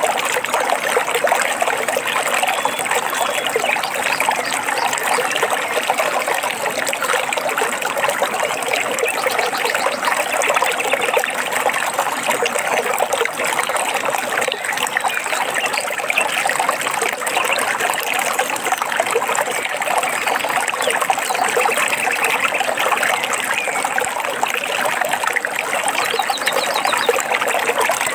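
Steady babbling and trickling of a shallow forest stream, with a few faint bird trills over it, about halfway through and again near the end.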